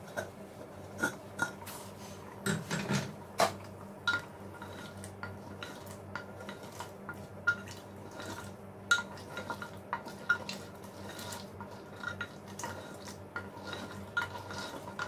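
Kitchen utensils clinking and knocking against a clay cooking pot in irregular strikes, some with a short ringing tone, over a low steady hum.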